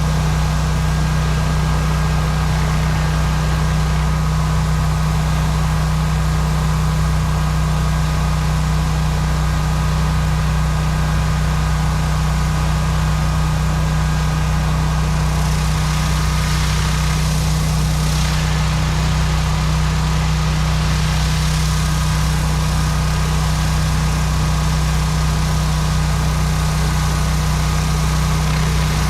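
Pressure washer's gas engine running steadily with a deep hum. Over it runs the hiss of the high-pressure water spray on concrete, which swells for several seconds around the middle.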